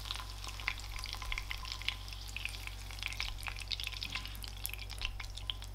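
Hot butter sizzling and crackling in a frying pan, with many small irregular pops, while a spatula scrapes cooked mushrooms and spinach out of the pan.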